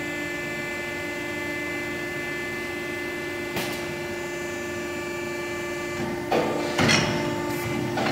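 YLM CNC tube-bending machine running with a steady, even motor hum. A knock sounds about a third of the way in, and a few louder clanks and clatter come near the end.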